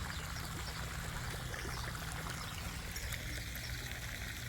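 Steady trickling, running water at a pond, an even rushing noise with no distinct events.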